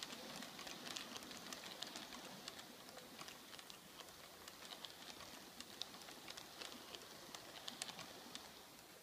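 H0-scale model tank wagons rolling along the track, with light, irregular clicking of the wheels over rail joints over a soft rolling hiss, slowly growing fainter.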